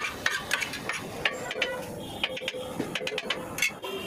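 Metal cleaver blades chopping cooked shawarma chicken on a flat steel griddle: sharp metal clacks at an irregular pace of about two or three a second.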